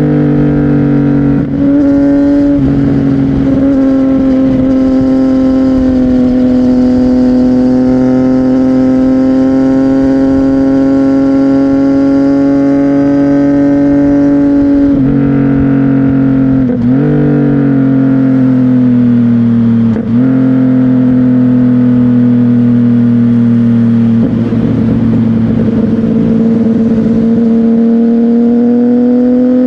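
CFMOTO 675NK's inline-three engine running through an aftermarket titanium exhaust, holding a high, steady pitch. The pitch dips sharply and recovers a few times, about halfway through and twice soon after, then rises slightly near the end.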